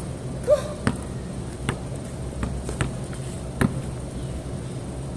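Basketball bouncing on a concrete court: sharp thuds about once a second, unevenly spaced, over a steady low hum.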